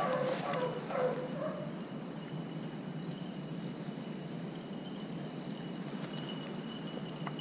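Distant beagles baying, a few short calls in the first second or two, then a steady outdoor hiss.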